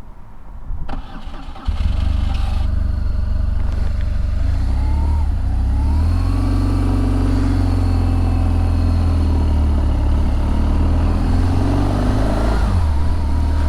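Motorcycle engine catching with a sudden jump in level about two seconds in, then running and rising in pitch as the bike pulls away, easing off near the end.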